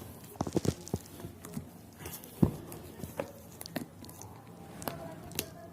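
A shipping package being handled and opened by hand: irregular taps, crinkles and knocks, with one sharper knock about two and a half seconds in.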